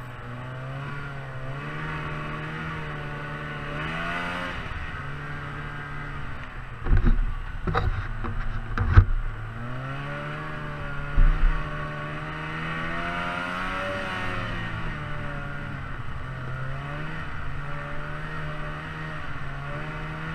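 A motor running steadily, its pitch slowly rising and falling, with a cluster of heavy thumps about seven to nine seconds in and two more around eleven seconds.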